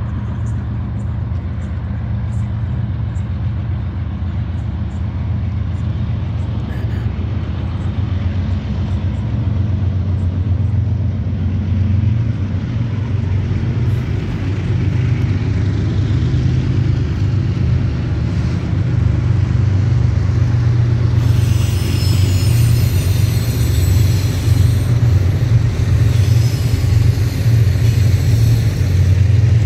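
Departing BNSF diesel-electric freight locomotives at work, hauling a double-stack intermodal train, with a steady deep rumble that grows louder as they approach. About two-thirds of the way through, as the locomotives draw level, a sharper hissing noise joins the rumble.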